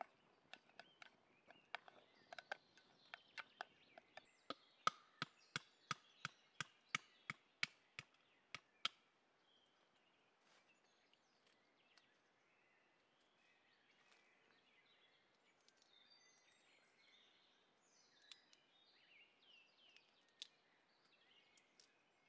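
Knife chopping on a cutting board: quick, sharp strokes about three a second for the first nine seconds, then only faint rustling and small ticks.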